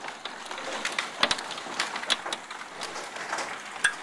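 Hailstones about half the size of golf balls pelting down with heavy rain: a steady hiss of rain with many irregular sharp clicks and knocks of stones striking hard surfaces.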